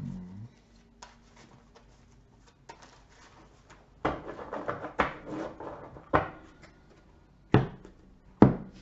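Trading cards handled on a tabletop: a few light clicks, then about two seconds of rustling and sliding cards, followed by three sharp slaps of cards put down on the table, the last the loudest.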